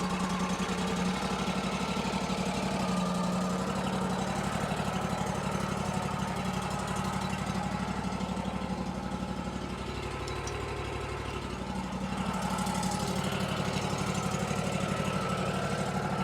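Wood-Mizer LT40 Wide sawmill's engine running steadily, an even pulsing hum.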